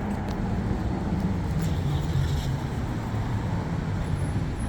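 Street traffic: a steady low rumble of motor vehicles on the road, with a faint high-pitched whine coming in near the end.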